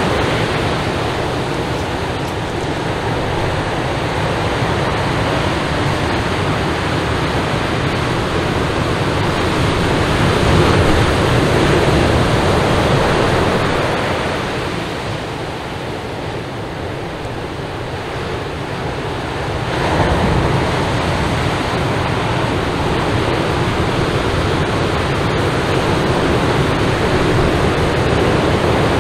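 Ocean surf breaking and washing up a sandy beach: a continuous rushing noise that swells and ebbs, dipping for a few seconds about halfway through before rising again.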